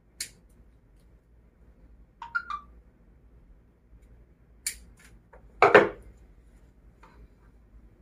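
Hand tool and Ethernet cable being handled while the cable end is prepared for an RJ45 plug: a few sharp clicks and a short squeak, then a louder clatter a little before six seconds in.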